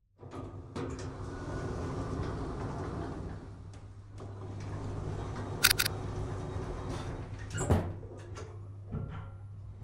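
Sound effects: a steady low hum with rattling and scraping, a sharp click about five and a half seconds in, and a heavy thump near the eighth second as a robot's body drops to the floor.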